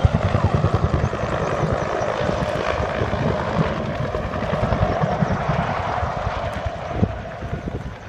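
Bell AH-1 Cobra helicopter passing low, its two-blade main rotor beating fast at about ten beats a second. The beat softens into a steadier rotor-and-engine drone as it moves away, and fades near the end.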